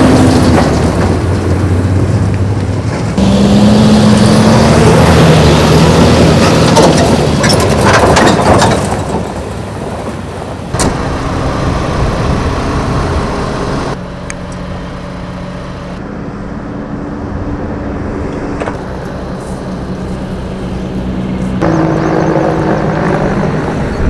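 Heavy diesel truck engines: a Mercedes-Benz water tanker drives past on a dirt track, engine running loud with tyre and gravel noise, then a quieter, steady engine runs, as of a parked fire engine idling. The sound changes abruptly several times.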